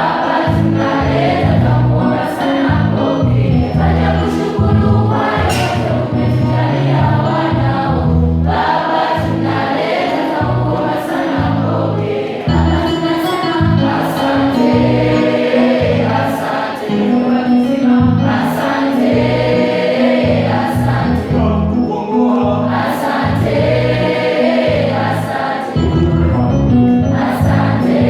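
A school choir singing a gospel song over a steady beat.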